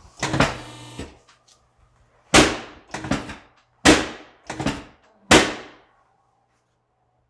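A brief scrape near the start, then five sharp thuds about 0.7 s apart from a chiropractic adjustment, strong and weaker by turns, each ringing briefly.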